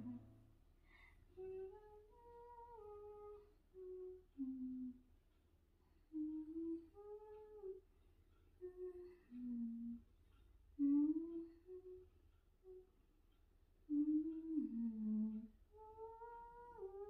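A woman humming a slow tune softly, in short phrases of held notes that step up and down, with pauses between phrases.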